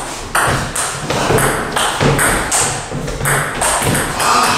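Table tennis ball hits: sharp, echoing clicks of the ball on bats and table, about two a second.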